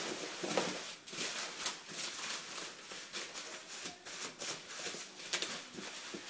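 Bubble wrap rustling and crinkling under hands as it is smoothed and pressed over a flat panel, in irregular crackles.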